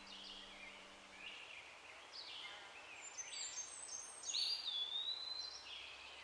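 Forest birds singing: a run of short chirps and trills, with one longer whistled note about four seconds in that slides down and then holds.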